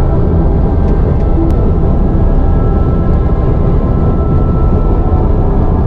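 Steady road noise of a car driving at speed: a constant low rumble of tyres and wind with a faint steady hum.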